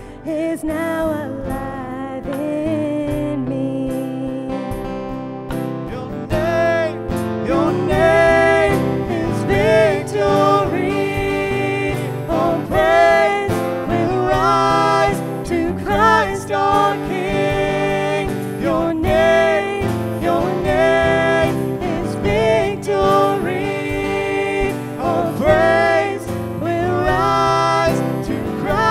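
A live contemporary worship song: a man sings the lead over keyboard and acoustic guitar, and the singing grows louder and fuller after about six seconds.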